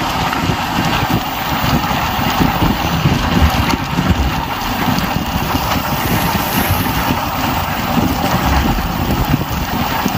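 Express train running on the line: the steady rumble and rapid clatter of coach wheels on the rails, as heard from inside a moving passenger coach.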